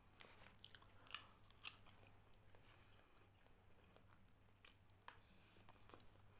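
Faint chewing of a person eating, with a few soft clicks, the clearest about a second and a second and a half in.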